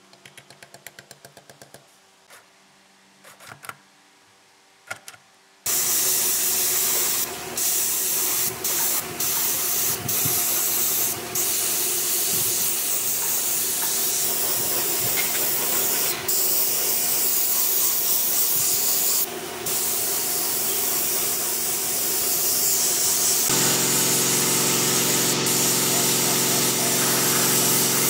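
Faint, quick hammer taps on the saw's spindle bearing, then from about six seconds in a gravity-feed air spray gun hissing as it sprays paint, breaking off briefly a few times as the trigger is let go. In the last few seconds a steady hum runs under the hiss.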